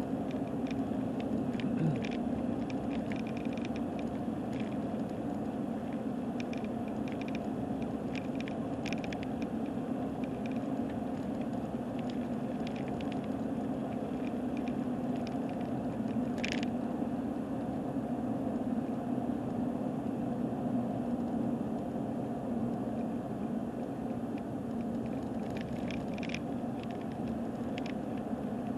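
A car driving: a steady drone of engine and tyres, with scattered light rattles and clicks, one sharper click about two-thirds of the way through. The rattles are ones the driver puts down to the camera being shaken on the rough road.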